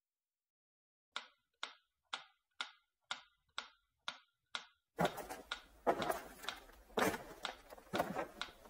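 Eight short, evenly spaced ticks, about two a second, like a clock ticking. About halfway through, footsteps begin crunching on loose gravel.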